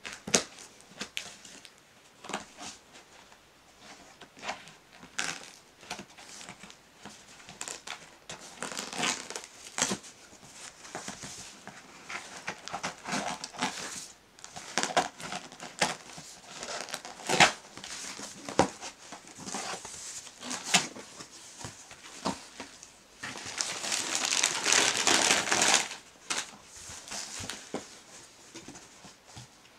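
A cardboard shipping box being opened by hand: scissors cutting packing tape, tape tearing and peeling, and cardboard flaps rustling in scattered sharp crackles. About three-quarters of the way through comes a longer stretch of loud crinkling.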